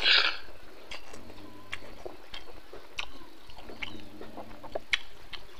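Close-miked mouth sounds of a man eating pork ribs and rice: a loud noisy burst as a handful goes into his mouth at the start, then chewing with scattered sharp clicks and wet smacks.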